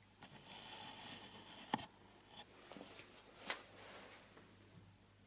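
Faint handling noises: a soft rustle and a few light clicks and taps, the sharpest about three and a half seconds in.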